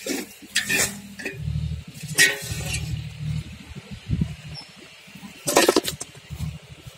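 Pieces of cut raw murrel fish dropped by hand into a stainless steel pot, with a few separate wet knocks and clinks against the metal.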